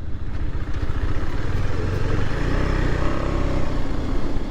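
Adventure-touring motorcycle engine running steadily under way, its note climbing a little about halfway through.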